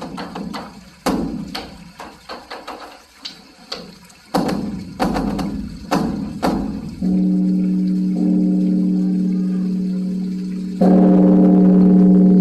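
Dharma drum (beopgo) struck in a run of uneven beats for several seconds. Then the large bronze temple bell (beomjong) is struck and rings with a steady deep hum, struck again, louder, near the end.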